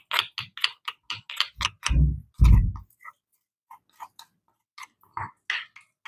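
Stone pestle pounding in a granite mortar: a quick run of sharp stone-on-stone clacks, with two heavy low thuds about two seconds in, then sparser, lighter knocks of the pestle and a spoon against the mortar.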